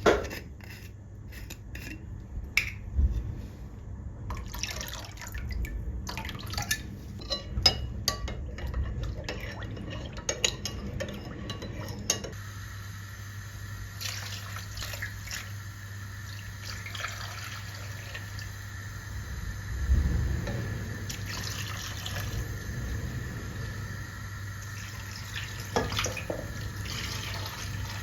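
Kitchen sink work: dishes and utensils clinking and knocking, then about twelve seconds in a tap starts running steadily, with a few more knocks over the running water.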